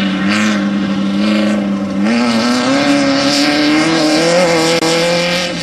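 Off-road desert race vehicle engine running hard at high revs. It holds steady, then climbs in pitch for about three seconds as it accelerates, and drops off sharply at the end.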